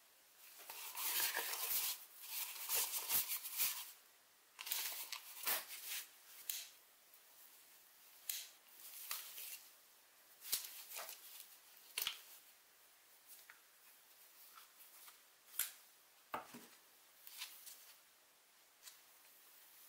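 Handling noise as an old Wolf electric drill and its paper instruction booklets are set down and shifted on a work surface: paper rustling and crinkling, with sharp light knocks and clicks. The rustling is densest in the first few seconds, then thins to scattered clicks and brief rustles.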